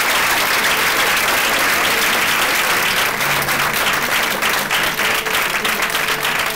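An audience applauding steadily, many hands clapping at once. Faint steady musical tones come in underneath about halfway through.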